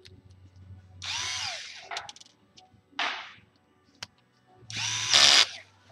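Cordless electric screwdriver whirring in two short runs, about a second in and again near the end, driving the last two screws into an RC car's chassis. The motor's pitch rises and falls with each run, the second run being the louder, with a single sharp clack between them.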